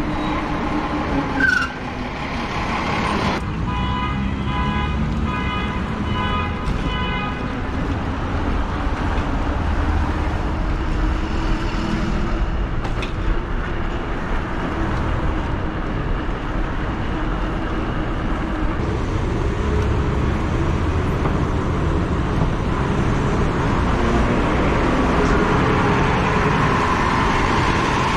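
Street traffic heard from a moving e-bike, with wind rumbling on the microphone. A few seconds in, a horn-like beep repeats about twice a second for roughly four seconds.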